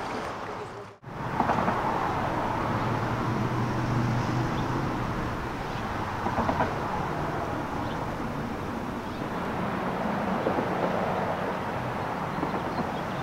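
Street traffic: cars going by close, a steady road noise, while an antique Brill single-truck electric trolley approaches along the street track.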